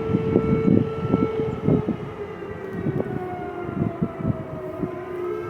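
Civil-defence air raid siren sounding an alert, a steady wailing tone whose pitch sags and then starts to rise again in the second half, over irregular low thumps.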